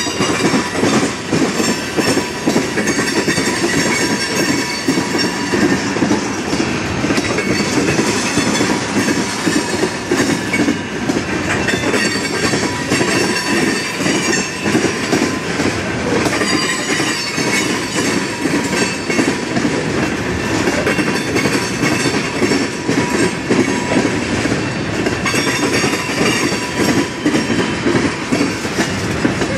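Freight train's tank cars rolling past, their steel wheels clattering steadily over the rail joints, with a thin high wheel squeal coming and going.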